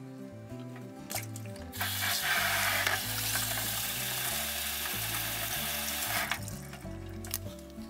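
Food frying in a pan, a steady sizzle that starts about two seconds in and cuts off about four seconds later, with a few light clicks before it.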